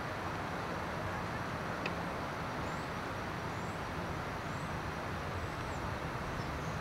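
Steady outdoor city ambience: a constant wash of distant traffic noise, with a few faint high chirps about once a second.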